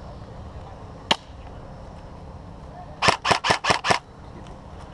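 Airsoft M4-style rifle firing: a single shot about a second in, then five quick shots in about one second near the end.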